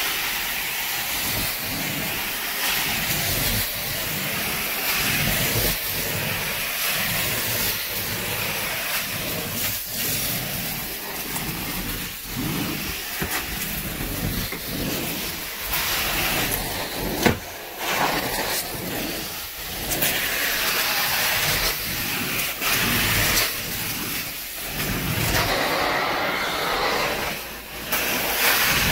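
Carpet-cleaning extraction wand working a carpet: a steady, loud suction hiss that swells and dips about once a second with the strokes. A single sharp click about seventeen seconds in.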